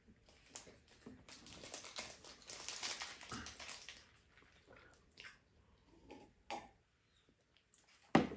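Eating and drinking at a table: a slurping sip from a mug, followed by small clicks and chewing sounds, and a sharp knock near the end.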